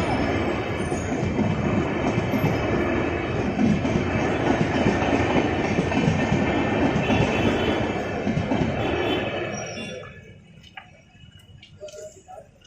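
Brindavan Express passenger coaches running over the track, with the wheels clattering over rail joints in a dense, steady rumble. The sound falls away sharply about ten seconds in.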